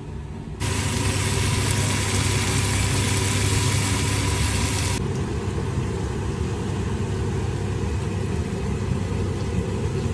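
Steady machine-like hum with a loud, even hiss over it. The hiss comes in sharply about half a second in and drops back to a lower level near five seconds, as the kitchen shots change.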